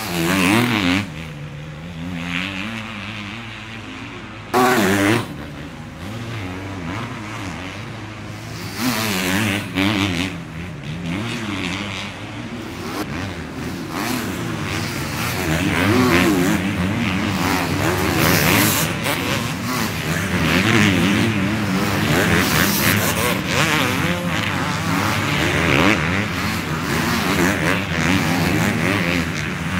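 Several 250cc motocross bikes racing past, their engines revving up and down over and over through the bumps. The engines grow louder and busier in the second half as more bikes come through close by.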